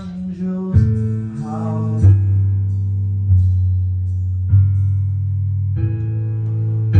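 Song accompaniment of slowly strummed guitar chords, one about every second and a quarter, each left to ring over a strong bass. A sung line fades out in the first two seconds, after which the chords continue on their own.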